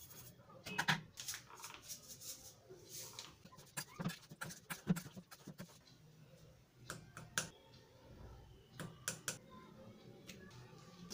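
Hand potato masher pressing boiled potatoes in a stainless steel bowl: a run of irregular knocks and clicks in the first half, then a few scattered clicks later on.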